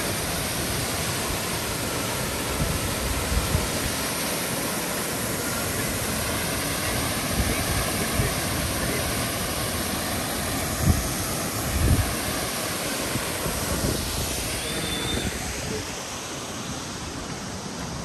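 Waterfall rushing in a steady roar of falling water, with a few low thumps, easing off a little near the end.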